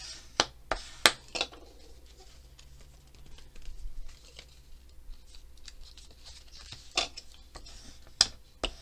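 File-folder card being folded and creased by hand against a desk: soft paper rustling with several sharp taps and crackles, a cluster of them in the first second and a few more near the end.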